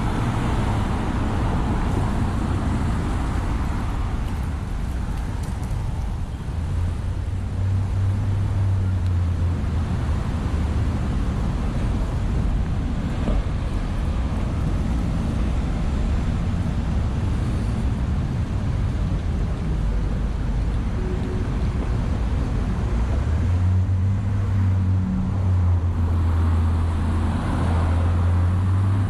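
Street ambience: passing car traffic with a steady low rumble of wind on the microphone, swelling near the start and again in the last few seconds.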